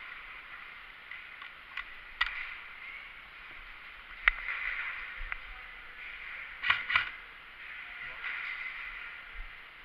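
Airsoft guns firing a few single shots: sharp cracks scattered through, with two in quick succession about seven seconds in, over a steady hiss.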